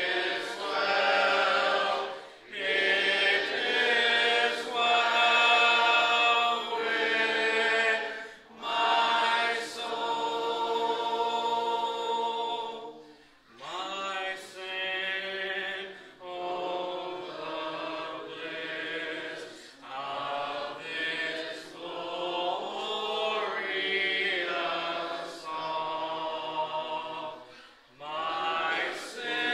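Human voice in long, drawn-out, chant-like tones, in phrases of one to four seconds with short breaks between them.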